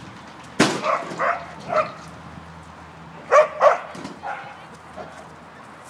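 Dog barking during an agility run, in two quick runs of three or four barks with a pause of about a second and a half between them.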